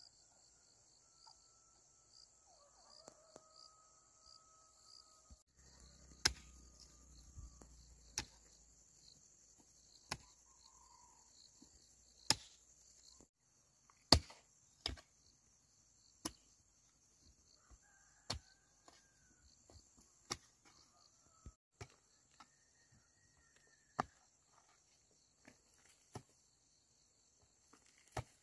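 Steady high-pitched insect chirring, broken by sharp knocks every second or two, the loudest about fourteen seconds in, with a few faint pitched calls.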